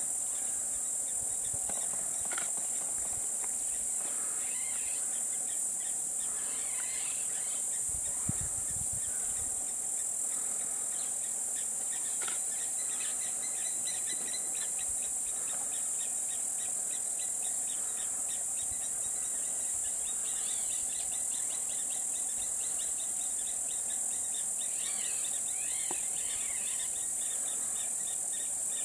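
Steady high-pitched insect chorus of crickets or cicadas, with scattered bird calls and runs of rapid ticking calls over it. There is one brief low thump about eight seconds in.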